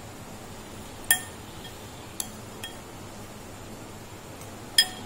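A metal spoon clinking against a glass bowl while cut raw mango pieces are scraped out, four short ringing clinks in all. The loudest come about a second in and near the end, with two lighter ones between.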